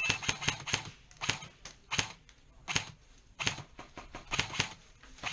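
Airsoft guns firing single shots, a string of sharp clicks. There is a quick cluster of clicks at the start, then one about every half second to second.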